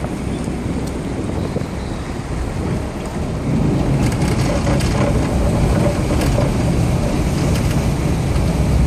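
A passenger boat under way: its engine running, water churning in the wake, and wind buffeting the microphone. It grows louder about three and a half seconds in.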